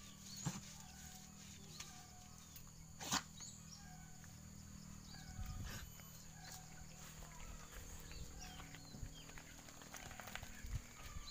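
Faint rural yard ambience: a steady high-pitched insect drone with repeated short bird chirps. A sharp knock comes about three seconds in, with a few soft thumps later.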